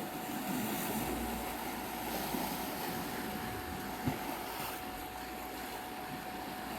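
Black Sea surf washing ashore as a steady hiss of waves, under a constant pure 741 Hz tone. A short knock about four seconds in.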